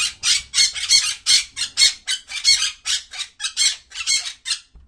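Parrot squawking: a fast run of short, harsh calls, about three or four a second, that stops shortly before the end.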